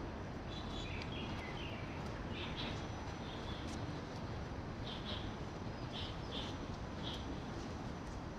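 Small birds chirping, short high calls repeating irregularly over the steady hum of city street noise.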